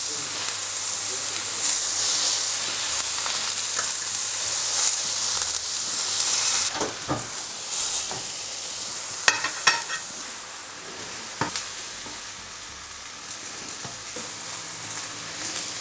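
Aubergine slices sizzling in a hot cast-iron grill pan with a little oil. The sizzle weakens about halfway through, and a metal fork clicks and scrapes against the pan several times as the slices are turned and lifted out.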